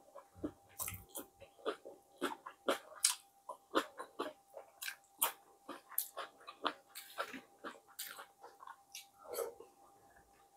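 Close-up mouth sounds of someone eating fried fish and bammy with their fingers: chewing, with many short, irregular wet clicks and lip smacks.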